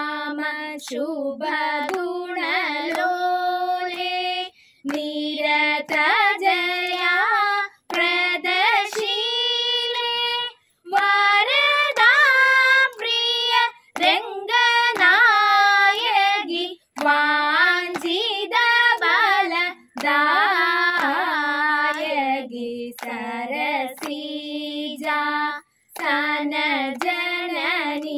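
Young girls singing a song together, held phrases a few seconds long with short breaks between them. No instrument accompanies the voices.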